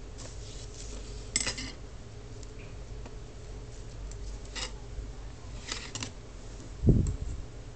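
Handling noises over a wooden tabletop: a few short crackling clicks and rustles, then one dull low thump near the end, over a steady low hum.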